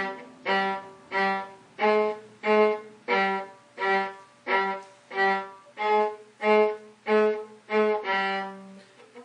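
Viola playing a line of short, detached notes, roughly one and a half to two a second, each fading before the next.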